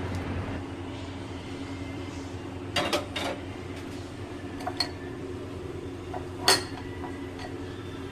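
Kitchenware clinking: a few sharp metal or ceramic clinks about three seconds in, near five seconds and loudest at about six and a half seconds, over a steady low hum.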